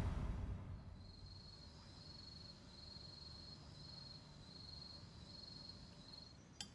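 A cricket chirping faintly in short, evenly repeated trills, about three every two seconds, after a music swell fades out at the start. A couple of sharp clicks come near the end.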